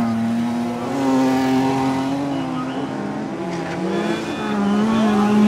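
Engines of several folkrace cars revving hard on a dirt track. The pitch holds high, dips briefly a little after halfway as a driver lifts off, and climbs again on the throttle.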